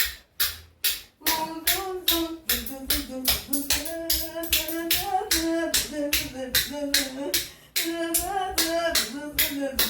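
Spoons clacked together in a fast, even rhythm, with a voice singing a melody over them from about a second in.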